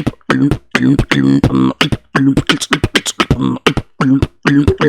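Human beatboxing: quick, sharp mouth-made kick and snare hits in an even rhythm, woven with short pitched vocal tones.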